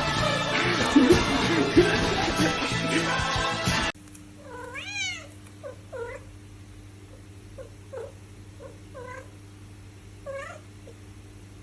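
Music that cuts off abruptly about four seconds in, followed by a cat meowing repeatedly: one longer, drawn-out meow, then several short meows spaced a second or so apart, over a steady low hum.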